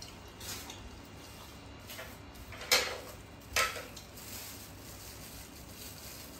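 Tableware clinking on a serving tray: two sharp clinks about a second apart near the middle, with softer handling clicks around them.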